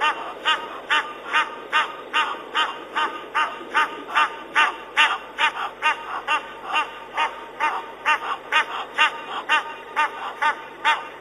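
An animal calling over and over in a steady rhythm: short, pitched calls a little over two a second, with no pause between them.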